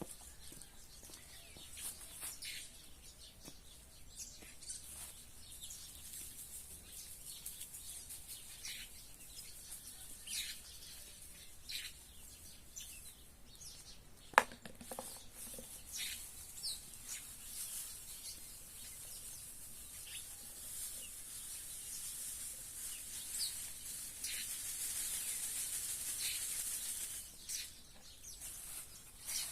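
Small wild birds chirping in short, scattered calls while feeding on thrown grain, with wings flapping. A single sharp click near the middle is the loudest sound, and a rushing noise swells for a few seconds near the end.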